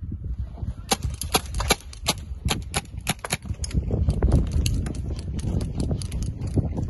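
Airsoft guns firing a rapid, irregular run of sharp cracking shots, about four to five a second. The shots thin out after about four seconds under a low rumble.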